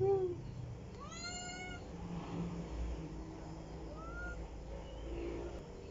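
A domestic cat meowing four times: separate calls that rise and fall in pitch, the longest about a second in, a short higher one later and a lower one near the end.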